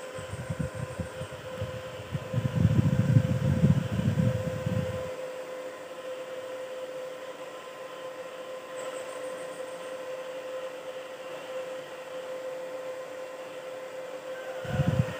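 Izumi MO 120 electric welding machine switched on and running idle: its cooling fan runs with a steady hum. For about the first five seconds a low, uneven rumble sits under it and then stops abruptly.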